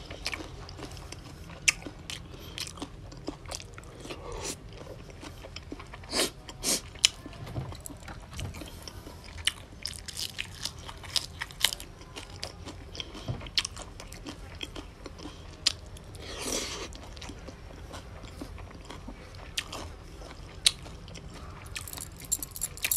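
Close-up eating sounds of a man chewing mouthfuls of raw salmon salad with raw vegetables: irregular crunching and mouth clicks, a few louder ones about a quarter of the way through.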